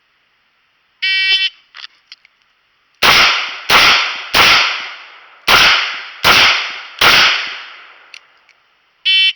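An electronic shot timer beeps, then a Taurus 856 .38 Special snub-nose revolver fires six shots in two strings of three, one string on each target, with a short pause between them as the shooter moves to the second target. A second timer beep about eight seconds after the first marks the end of the par time.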